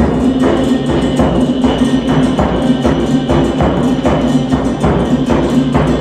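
Kazakh ethno-folk ensemble playing live: strummed and bowed folk string instruments over a steady percussion beat of about two strokes a second. The music cuts off abruptly at the end.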